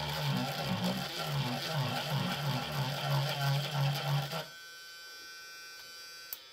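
Handheld electric nail file buzzing as its spinning bit sands a small spot on a wooden cabinet door, the buzz wavering unevenly. About four and a half seconds in it drops to a quieter, steady hum.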